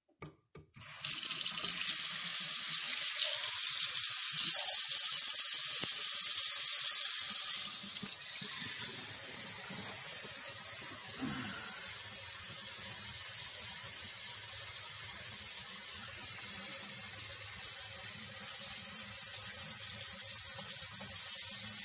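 Kitchen faucets turned on, with water running steadily into a stainless steel double sink and down the drain to test a resealed basket strainer for leaks. About nine seconds in the water sound drops and turns duller, heard from the cabinet beneath the sink.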